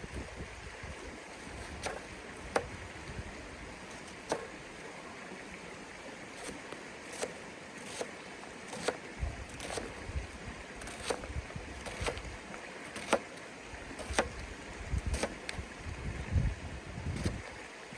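Steady rush of a river, with a dozen or so sharp clicks or taps at irregular intervals and a few low rumbles of wind on the microphone near the middle and toward the end.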